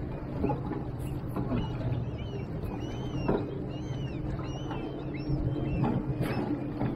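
Boat outboard motor idling with a steady low hum, with water knocking and slapping against the aluminium hull. Near the middle, birds give a string of short rising-and-falling calls.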